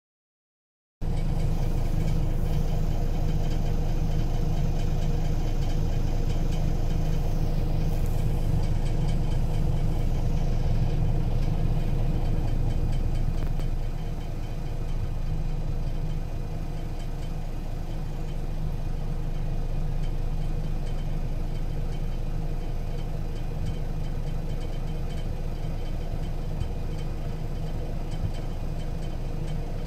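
Scania L94UB city bus's five-cylinder diesel engine idling steadily, heard from inside the passenger cabin. It comes in about a second in and turns a little quieter around the middle.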